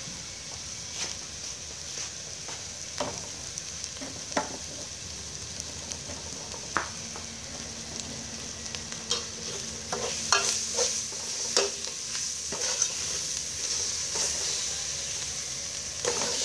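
Yellow-green herb paste sizzling steadily in oil in an aluminium pot, with scattered clicks and knocks of a metal ladle against the pot, more frequent in the second half.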